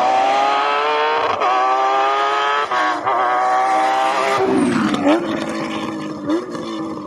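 Rally car engine at full throttle, rising in pitch through the gears with two quick gearshifts. About four and a half seconds in, the note drops sharply as the car passes and lifts off, with two short blips, and the sound fades as it pulls away.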